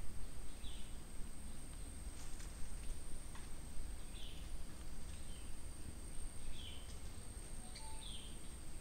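Rural ambience: a steady high-pitched insect whine with a bird repeating a short, falling call about every second and a half, over a low rumble of wind.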